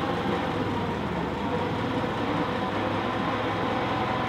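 The four-cylinder engine of a 1922 Ford Model T fire truck running steadily at low speed.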